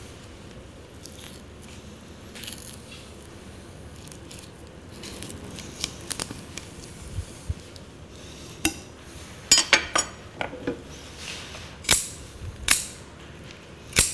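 A sharp knife cutting along a red snapper's backbone, the blade scraping and clicking against the bones. It is quiet and faint at first, then from about halfway a series of sharp clicks and short scrapes.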